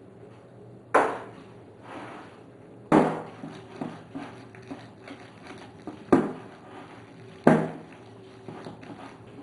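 A spatula stirring thick cake batter in a glass mixing bowl, with four sharp knocks against the bowl and lighter scraping and clicking between them.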